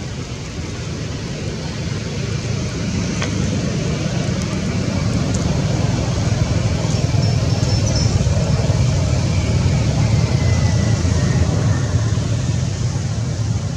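A steady low rumble that swells gradually to its loudest around the middle of the stretch and eases slightly near the end.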